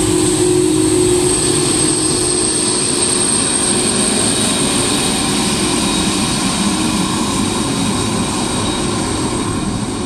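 Boeing 747 jumbo jet's four jet engines running at taxi power close by: a loud, steady jet roar with a high whine on top. The roar eases slightly near the end as the plane moves off.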